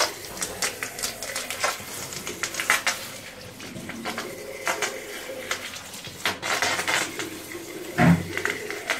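Water from a hose running into the open cells of a lead-acid battery to flush out the old acid and sludge, with frequent light clicks and clatter as the hose is worked over the plastic case. A heavier thump comes about eight seconds in.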